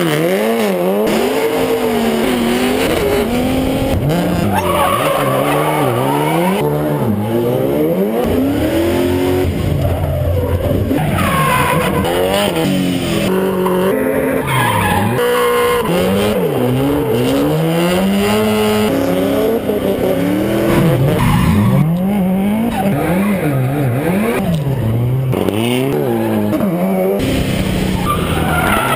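High-revving competition car engines driven hard through gymkhana manoeuvres, the pitch climbing and dropping over and over as the throttle is blipped and held, with tyres squealing and skidding throughout.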